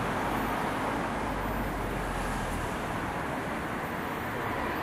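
Steady city street traffic noise, with a low rumble that eases a little past halfway.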